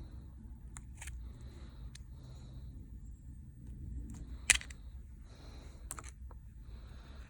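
Small clicks and light scraping of hand tools working on an opened smartphone's internals as the charging port is pried out, with one sharp, much louder click about four and a half seconds in.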